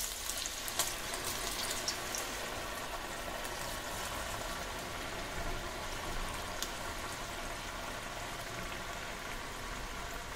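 Moong dal murukku dough deep-frying in hot oil in a kadai: a steady bubbling sizzle with scattered crackles, a few sharper pops in the first couple of seconds, as the freshly dropped dough gives off its moisture.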